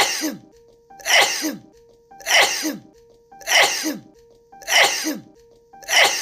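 A woman sneezing, the same sharp sneeze looped about every 1.2 seconds, six times. Each sneeze ends in a short falling vocal tail. A steady held tone sounds in the gaps between sneezes.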